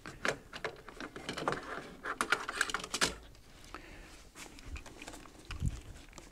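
Handling noise from a rifle and a small tool at a workbench: a run of light clicks, taps and rustles, busiest in the first three seconds, with a few more near the end.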